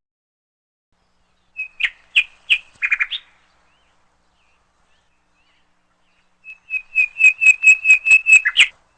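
Short, high bird-like chirps in two runs: a few around two seconds in, then a quick, even series of about a dozen near the end, with silence between.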